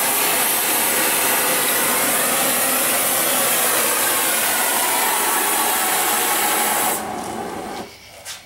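Oxy-fuel cutting torch hissing steadily as it cuts through steel angle iron. The hiss drops about seven seconds in and stops about a second later, followed by a single sharp click.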